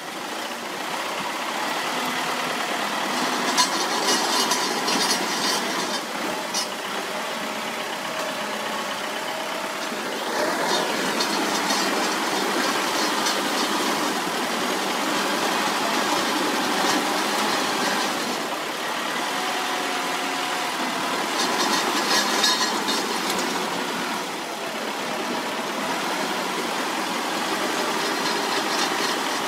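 Crawler bulldozer's diesel engine running steadily, with a few spells of rattling about 4, 11 and 22 seconds in.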